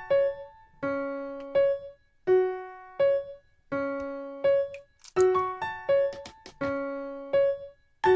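Background music: a light, bouncy solo piano tune, each note struck and left to fade. A few short clicks come through about five to six seconds in.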